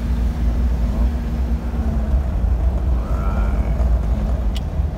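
Car driving along a road: a steady low rumble of engine and tyre noise with a constant hum.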